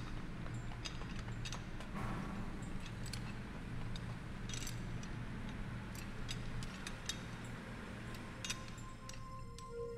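Steady low hum of sci-fi machine ambience with scattered small ticks and clicks. About nine seconds in, soft sustained musical tones begin.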